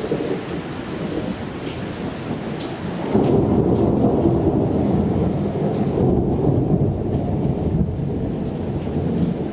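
Thunderstorm: rain falling steadily, and about three seconds in a long, low rumble of thunder sets in and keeps rolling.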